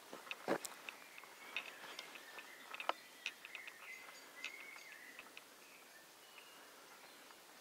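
Scattered sharp clicks and crackles of footsteps on dry leaf litter and twigs, busiest in the first three seconds, with faint short bird calls.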